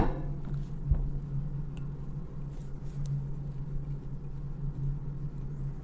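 Steady low background hum with a few faint small clicks, from a screwdriver working screws out of the rifle's mount.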